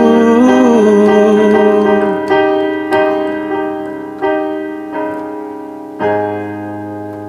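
Piano closing out a song: a held, wavering note dies away about two seconds in, then single chords are struck at roughly half-second to one-second intervals, each left to ring and fade, the last about six seconds in.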